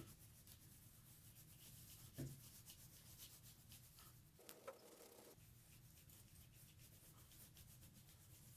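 Faint scratching of a coloured pencil shading on paper, a soft, steady rasp of quick little strokes.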